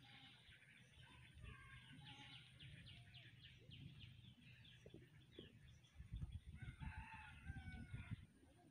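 A rooster crowing faintly about six and a half seconds in, with faint small-bird chirps in the first half.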